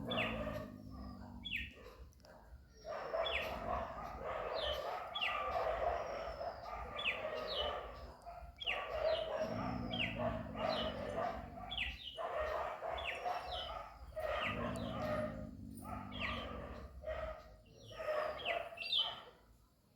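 Birds chirping: a run of short, falling chirps repeating about once or twice a second over steady background noise.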